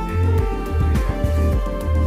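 Background music with a steady, regular bass beat under sustained melodic notes.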